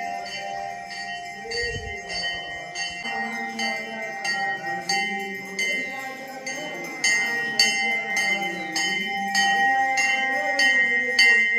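Temple bells rung over and over for a Hindu aarti, about two strokes a second, their ringing tones overlapping into a steady clang. Voices singing the aarti can be heard beneath.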